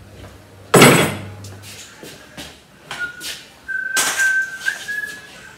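A loud thump about a second in, then a person whistling a few held high notes that waver and shift in pitch, over light knocks of scooter body panels being handled.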